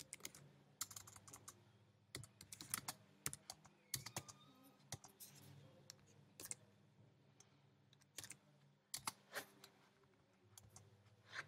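Faint computer keyboard keystrokes, irregular single presses and short runs of typing, over a faint steady low hum.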